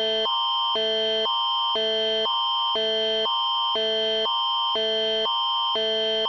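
Canadian emergency alert attention signal, the Alert Ready tone that opens an Alberta Emergency Alert broadcast: two chords alternate about twice a second, a low chord and a higher one, with a shrill high tone held steady under both.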